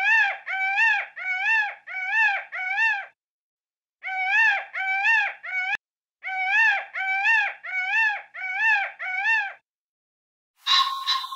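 Peafowl calling: a rapid series of short calls that each rise and fall in pitch, about two a second, in three runs separated by brief gaps.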